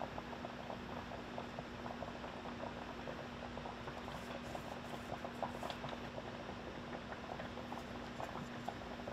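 Hogfish fillets frying in a pan, a steady sizzle of many small crackling pops over a hiss, with a steady low hum underneath.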